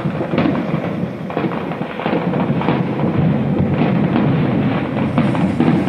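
Fireworks going off in rapid succession: a dense, continuous barrage of bangs and crackles with a rumbling undertone.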